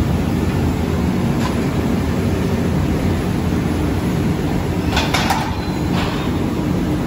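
Steady low mechanical drone of factory machinery along an electroplating tank line. A faint click comes about a second and a half in, then a cluster of sharp metallic clicks about five seconds in and another about a second later.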